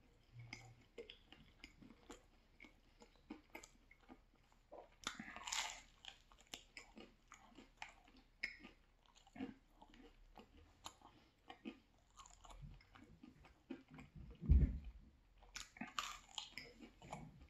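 Close-miked chewing of a slice of spicy pepperoni pizza: a steady run of wet mouth clicks and smacks, with crunches as the crust is chewed. A dull thump comes about three-quarters of the way in, followed by a fresh crunchy bite into the slice.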